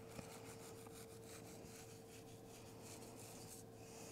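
Faint scratchy rustling of dry seasoning rub being shaken and worked onto a rack of raw beef ribs, over a steady low hum.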